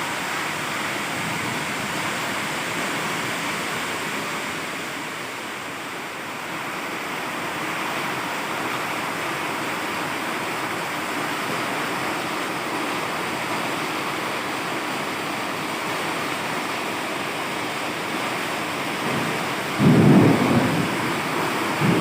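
Heavy rain pouring steadily during a thunderstorm, with a brief, louder low rumble near the end.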